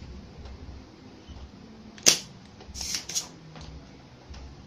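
Spring-loaded desoldering pump firing with one sharp snap about two seconds in, sucking molten solder off a flyback transformer pin, followed by a couple of softer scrapes and clicks.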